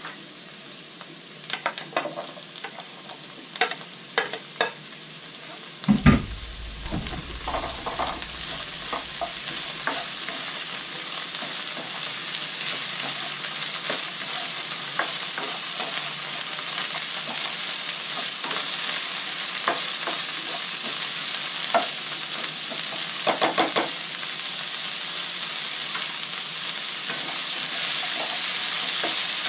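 Food frying in a nonstick wok, with clicks of stirring. About six seconds in broccoli florets go into the hot pan with a heavy burst of sizzling. After that the sizzle grows steadily louder as the broccoli is stir-fried, with a few more utensil clicks and scrapes.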